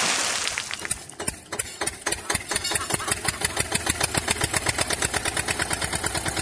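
Tractor engine cranking with a few uneven knocks about a second in, then catching and idling with a steady, fast, even knocking beat.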